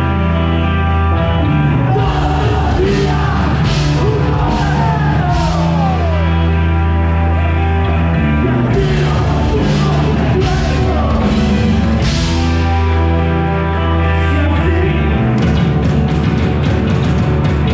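Live rock band playing loud and steady, with electric guitars, bass and drums whose cymbals crash repeatedly.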